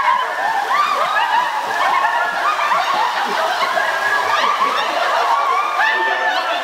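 A group of people laughing and shouting over one another in high voices while splashing through shallow pool water, with the hiss and slap of the splashing underneath.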